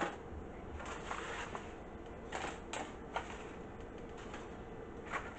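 Scattered light clicks and scrapes of fried shrimp being picked up and set onto a paper plate, a few sharp taps among them, over a faint steady hum.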